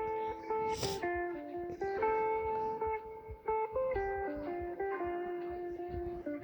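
A Samsung Galaxy S22 ringtone playing: a melody of separate plucked notes.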